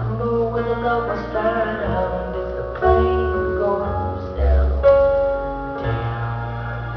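Music with sustained keyboard tones, a steady bass line and some singing.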